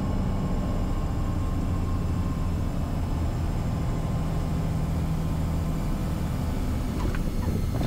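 Piper Malibu Mirage's piston engine and propeller at idle power during the landing flare: a steady low drone with airflow noise and no change in power.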